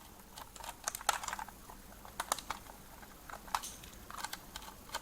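Irregular light clicks and taps of a small screwdriver and plastic parts as a screwed-down battery cover on a toy RC car or its remote is undone.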